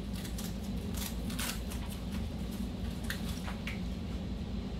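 Faint scattered clicks and rustles of an RC car and its plastic body being handled, over a steady low hum.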